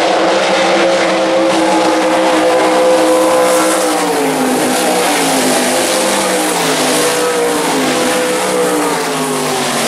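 Several winged sprint cars racing on a dirt oval, their engines running together at full song. From about four seconds in the pitch drops away twice as the cars go by.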